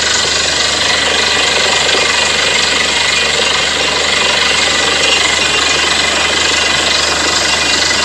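Borewell drilling rig running, a loud, steady mechanical hammering rattle over engine noise.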